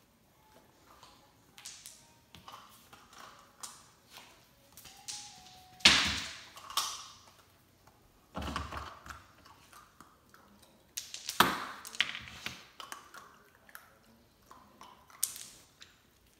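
German Shepherd puppy pawing and batting an ice cube across a hardwood floor: scattered taps and clicks of the ice and its claws on the wood, with a few louder scuffles lasting about a second each.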